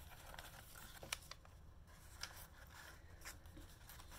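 Faint rustling of paper and card being handled, with a few light ticks about a second apart as an insert is slid back into a journal pocket.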